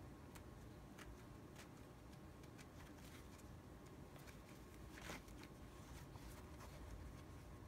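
Faint rustling and scattered small clicks of a leather tool-belt waist strap being handled and adjusted by hand, the loudest click about five seconds in, over quiet room tone.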